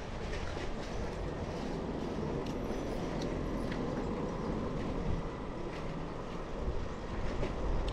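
A bicycle rolling over a brick-paved street, heard from the handlebars. The tyres give a steady rumble on the bricks, with light rattling and clicks scattered through it.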